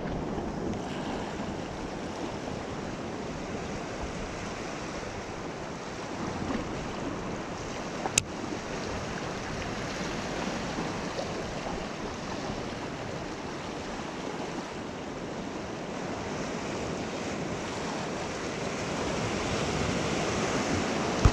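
Ocean surf washing over shoreline rocks in a steady rush, with wind buffeting the microphone. One sharp click about eight seconds in.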